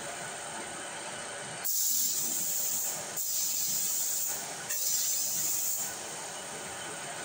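Compressed-air spray gun spraying primer, hissing in three bursts of about a second each with short gaps between, over a fainter steady hiss.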